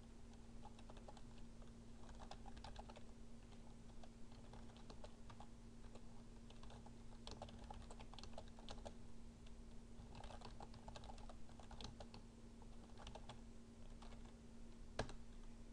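Faint typing on a computer keyboard, the key clicks coming in short runs, with one sharper key press near the end. A faint steady hum runs underneath.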